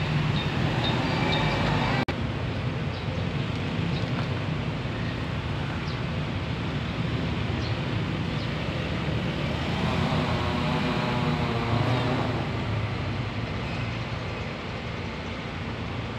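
Steady outdoor noise of road traffic, with a short wavering pitched sound about ten seconds in.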